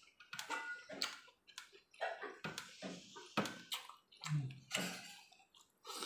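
Wet eating sounds from a hand-eaten meal: fingers squishing and mixing rice and curry on a plate, and lips smacking while chewing, in short irregular clicks and squelches.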